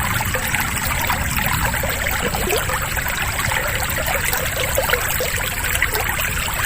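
Steady rushing of flowing water, like a stream, at an even level throughout.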